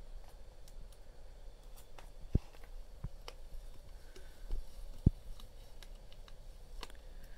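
Small handling noises of a vinyl decal being applied to a car window: scattered light clicks and taps as the transfer tape is pressed down and peeled off the glass, with two sharper knocks, one a couple of seconds in and one about five seconds in.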